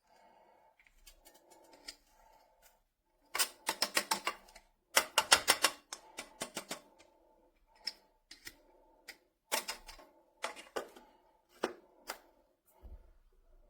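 Irregular sharp clicks and taps, in two quick rattling runs about three and five seconds in, then single clicks spaced a second or so apart.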